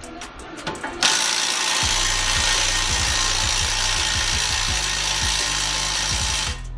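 Impact wrench running on a brake caliper bolt, starting about a second in and stopping near the end.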